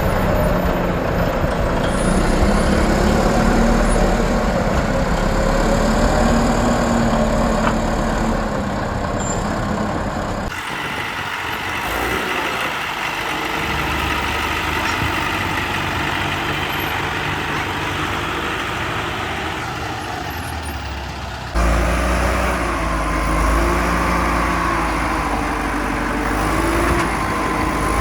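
Heavy machinery engines running at a construction site, their pitch wavering slightly, with the sound changing abruptly about ten seconds in and again about twenty-one seconds in.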